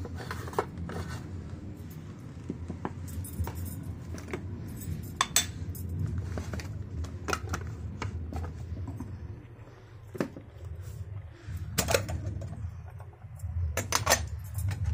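Glassware and metal bar tools clinking and clattering as they are handled and set down, in irregular knocks; the sharpest come about twelve seconds in and near the end.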